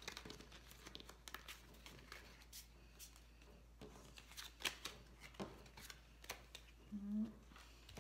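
Tarot and oracle cards being picked up and stacked off a wooden table: faint, scattered taps, slides and clicks of card stock. A brief low hum comes about seven seconds in.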